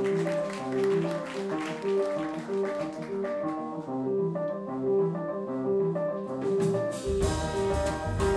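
Live jazz septet playing: a repeating riff of pitched notes over drums and cymbals. About seven seconds in, deep bass and a fuller ensemble sound come in.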